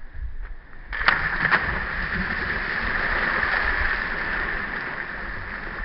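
Two people splashing into shallow water about a second in, two quick splashes close together, followed by a steady rush of churned water with low wind rumble on the microphone.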